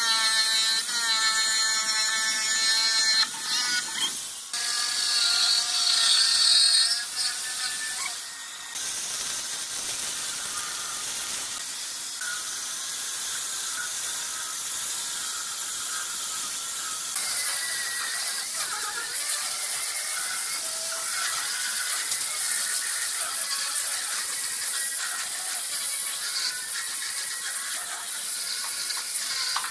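Electric jigsaw cutting a curve in a wooden board, its motor whining, with a short break about four seconds in. After about eight seconds it gives way to an angle grinder with a sanding attachment, running with a steady hiss as it sands the curved wooden edge and face.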